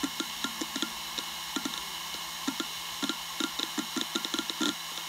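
Western Digital Raptor WD1600ADFD 10,000 rpm hard drive at work: the head actuator seeking in quick, irregular clicks, several a second, over the steady whine of the spinning platters. The clicking is the sign of the drive busy reading or writing.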